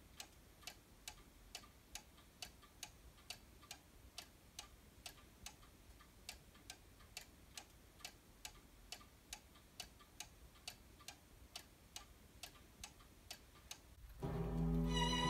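A pendulum wall clock ticking steadily, about three ticks a second. Music starts near the end.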